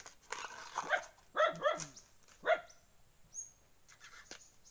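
A dog barks three times, two quick barks about a second and a half in, then one more a moment later. A light rustle of banana-heart bracts being peeled comes just before.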